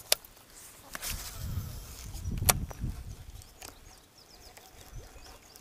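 Handling clicks from a baitcasting reel as a popper is cast and worked: a sharp click just after the start and a louder one about two and a half seconds in, over low rumbling handling noise.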